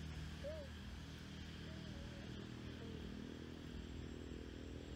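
Steady low engine rumble, with a few faint, short, wavering squeaky calls in the first half.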